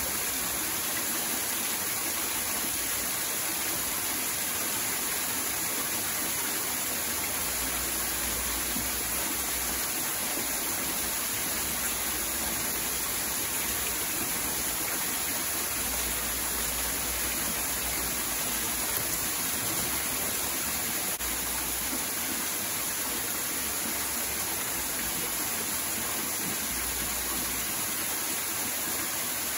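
Steady rush of running water pouring into a shallow pool.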